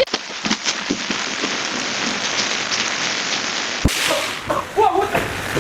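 Steady hissing with many scattered sharp crackles and pops. About four seconds in it breaks off with a sharp knock, and a person's brief vocal sounds follow.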